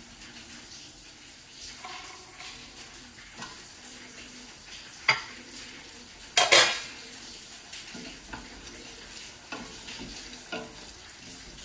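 Chicken pieces sizzling gently in sauce in a stainless steel pot over low heat, with sharp metal clinks about five and six and a half seconds in. A wooden spoon stirs and knocks the chicken against the pot near the end.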